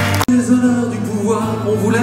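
Live acoustic band playing the opening of a song: strummed acoustic guitars under a wavering melody line. The sound drops out abruptly for an instant about a quarter second in, at a cut in the recording, and the music carries on after it.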